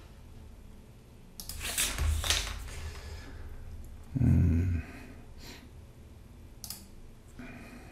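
Breath noise close to a microphone: a long noisy exhale about a second and a half in, then a short, louder low vocal sound about four seconds in, followed by a few faint brief noises.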